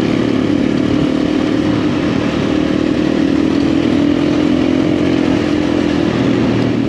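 Husqvarna FE350 dirt bike's single-cylinder four-stroke engine running at a steady pace on a gravel track, heard from the rider's camera over a rush of wind and gravel noise.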